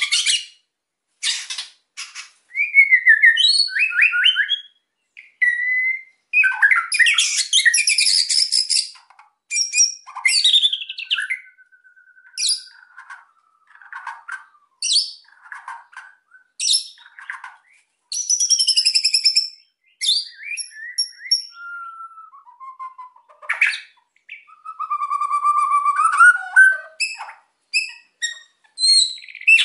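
White-rumped shama (murai batu) singing an excited, fired-up song: a fast run of varied phrases, with clear whistles, slurred notes and bursts of rapid rattling chatter, separated by short pauses.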